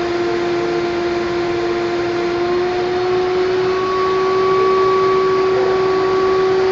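Paint-spraying air supply running steadily: a motor whine over a hiss of air, its pitch rising slightly a few seconds in.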